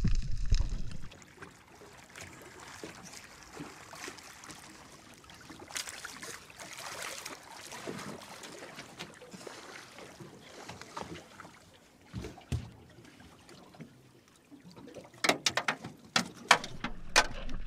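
Faint water lapping against a small boat's hull, then a handful of sharp knocks near the end.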